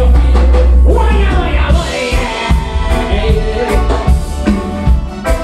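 A live reggae band playing: a heavy bass line with drum kit, electric guitar and keyboard, and a man singing over it.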